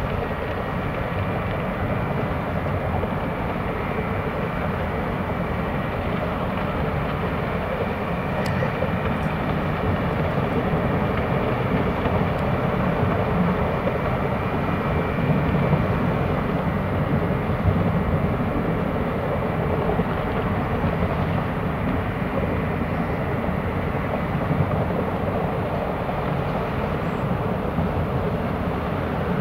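Large ro-pax ferry's engines and propellers working while it berths: a steady low rumble and rush of churned water, with a faint steady high whine over it.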